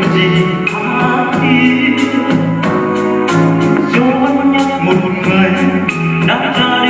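Music: an accompanied Vietnamese song with a steady drum beat and a wavering melody line, in a passage with no lyrics.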